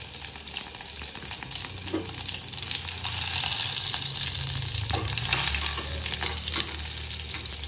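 Grated garlic sizzling in hot mustard oil with mustard seeds in a steel kadai, stirred with a steel spoon. The sizzle grows louder about two and a half seconds in.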